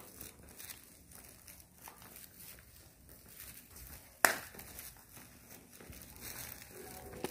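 Faint rustling and small knocks from a handheld phone being carried while walking, with one sharp click about four seconds in.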